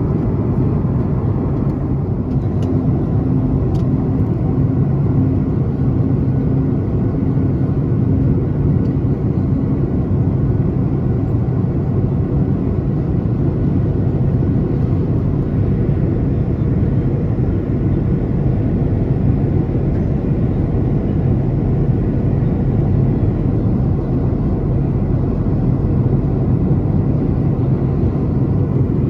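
Steady in-flight cabin noise of a Boeing 737-900ER heard from a window seat beside the wing: the low, even drone of the CFM56 turbofan engine and rushing airflow.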